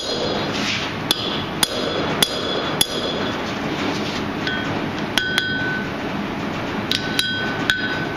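Blacksmith's hammer striking steel on an anvil, about a dozen blows, each ringing briefly. A run of blows comes about half a second apart, then after a short pause more come in an uneven rhythm, over a steady background noise.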